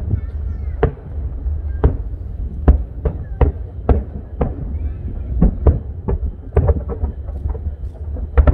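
Aerial fireworks display: shell bursts going off one after another, about one or two bangs a second, over a steady low rumble.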